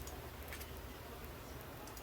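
A few faint, sharp clicks, as of someone using a computer to look something up, over a low steady hum.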